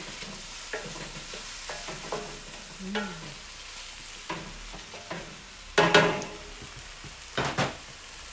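Chicken and vegetables sizzling in a hot steel wok as they are stir-fried, with a steady hiss and short scrapes and knocks of the stirring utensil against the wok. The loudest strokes come about six seconds in and again about a second and a half later.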